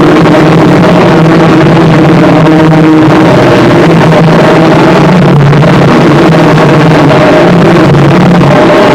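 Harsh noise: a dense, heavily distorted wall of noise at full level, with steady buzzing drones underneath and no breaks.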